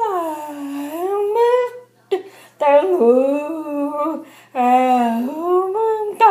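A woman's voice singing a hymn tune without clear words, in three long drawn-out phrases whose pitch slides up and down.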